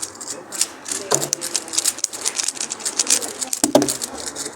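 Speedcube being turned fast during a solve: a rapid, irregular stream of sharp plastic clicks.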